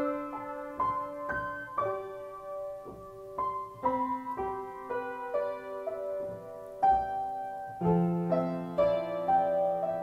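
Slow, gentle piano music: single notes and chords struck every half second or so and left to ring, with a deep bass note coming in about eight seconds in.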